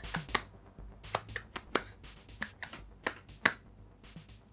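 Hands tapping together: fingertips and palms meeting in about a dozen quiet, irregular slaps.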